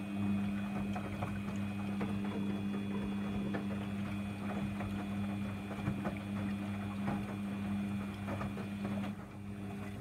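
Samsung washing machine running a heavy 60 °C wash: a steady motor hum as the drum turns, over a noisy churning of the load. The hum dies away near the end.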